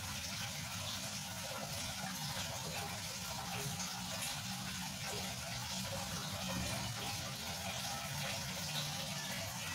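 Aquarium filter or pump water running steadily into the tank, an even splashing flow with a faint low hum underneath.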